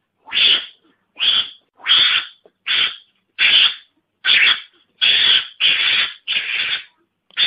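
Mongoose (garangan) lure call: a run of harsh, raspy calls, each about half a second long, repeated about once every 0.75 s.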